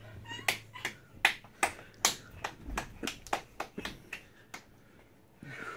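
Quick, sharp clicks made with a person's hands, about five a second in an even rhythm, stopping about four and a half seconds in.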